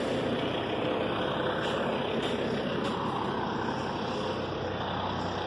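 Diesel semi truck engine running steadily, a low even drone.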